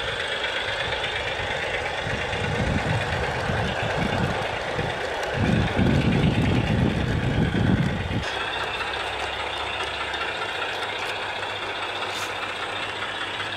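Simulated Class 03 diesel shunter engine from a DigiSound sound card, played through the small speaker of a Gauge 1 model locomotive. It runs steadily while the model works a loaded train up a steep gradient. A low rumble sits under it until about eight seconds in, then falls away.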